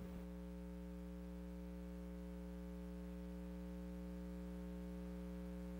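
Steady low electrical hum, with no other sound.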